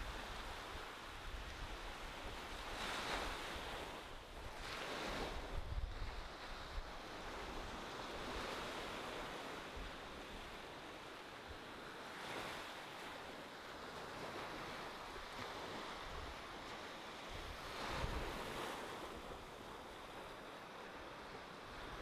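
Gentle ocean surf washing onto a sandy beach: a steady hiss that swells each time a wave comes in, every few seconds.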